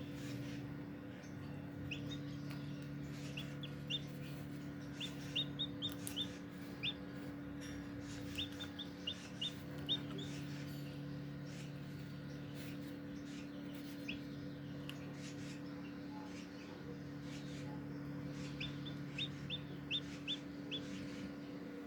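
Shamo Aseel chick peeping during hatching: short, high, slightly falling peeps in quick runs of four to six, coming four times, over a steady low hum.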